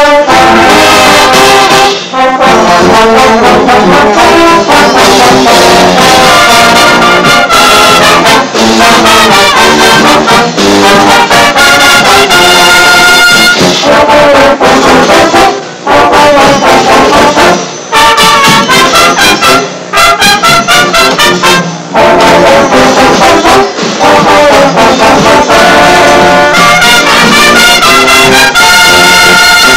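A Brazilian fanfarra, a marching brass band with trumpets, bugles and sousaphones over percussion, playing a baião at full volume, interrupted by a few brief gaps.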